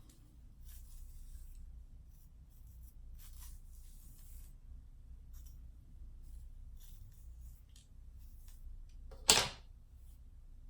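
Faint, scratchy rustling of long straight hair being handled and parted, with one sharp click about nine seconds in.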